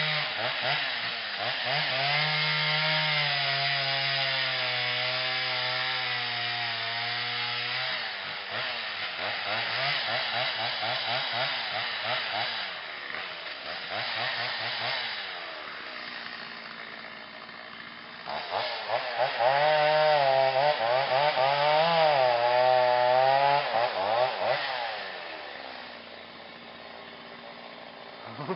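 Chainsaw cutting into the top of a dead tree, its engine speed rising and falling as the chain bites. It runs a long high-revving stretch in the second half, then drops back to a steady idle near the end.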